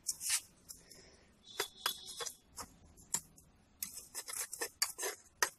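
Small metal-bladed hand tool scraping and digging into gritty potting soil, loosening the topsoil around a potted petunia: a run of irregular scratchy strokes and clicks.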